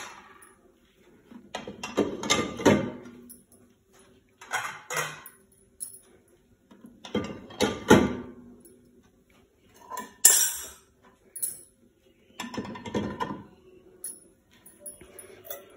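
Dishes being loaded into a dishwasher rack: plates, cups and cutlery clattering and clinking against the rack and each other in short bursts every second or two, with quiet gaps between.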